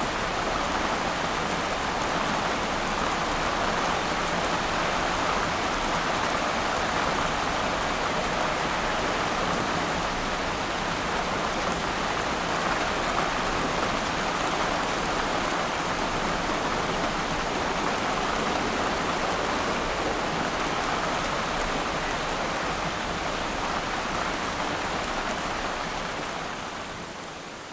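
Steady rainfall pattering on open water, a continuous even hiss of drops, which dips in level near the end.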